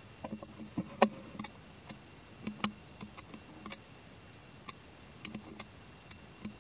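Newborn macaque suckling at its mother's nipple: irregular soft clicks and smacks, the sharpest about a second in.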